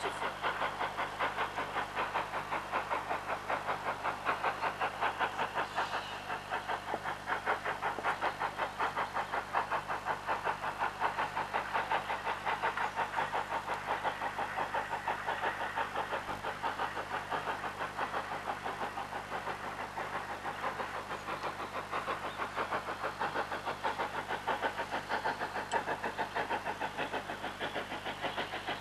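Distant steam locomotive working steadily, its exhaust beats coming as a fast, even chuffing that keeps up without a break.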